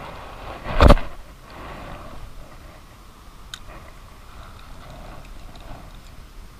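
One sharp knock about a second in, then quiet handling noise with a faint click near the middle.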